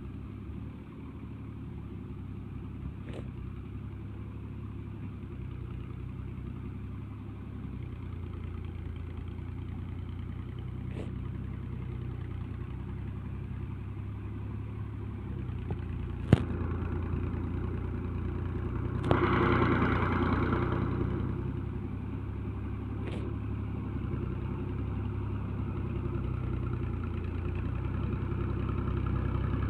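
Tractor's diesel engine pulling steadily under the weight of a trolley piled high with sugarcane, growing louder as it approaches. A sharp click comes about sixteen seconds in, and a short rush of louder noise a few seconds after.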